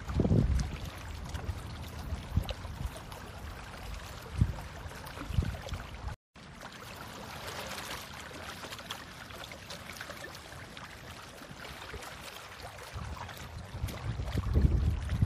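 Wet mud and clumps of marine worm tubes being pulled up by gloved hands, squelching, over a steady watery hiss with irregular low rumbles. The sound cuts out briefly about six seconds in.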